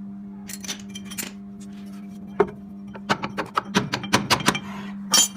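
Sharp metallic clinks and knocks, as from metal tools and parts being handled and struck: one a little before the middle, a quick run of about eight past the middle, and one more near the end, over a steady low hum.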